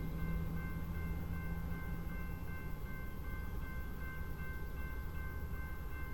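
Railroad crossing warning bell ringing in a steady, even rhythm over the low rumble of a freight train on the rails.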